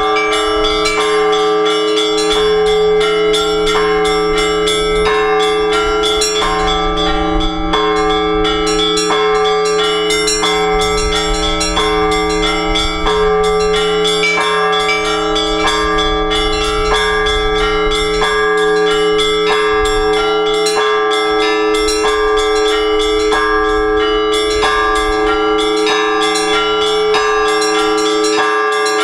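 Several Orthodox church bells rung together in a fast, steady peal. Smaller bells strike several times a second over the sustained hum of the larger bells.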